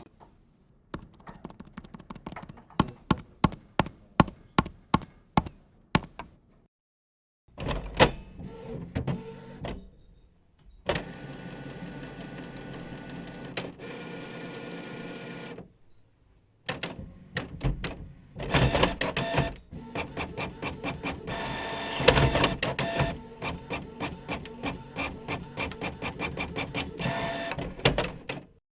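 Office printer at work: a run of sharp, evenly spaced clicks, then the motor whirring steadily, with clicking and rattling as it feeds and prints.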